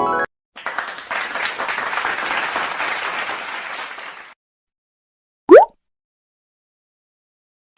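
Crowd applause and clapping for about four seconds, stopping abruptly. About a second later comes one brief, very loud rising whistle-like glide, the loudest sound here.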